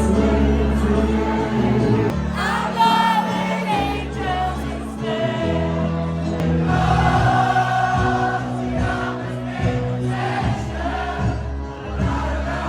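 Background music with a steady bass line and a choir-like singing vocal.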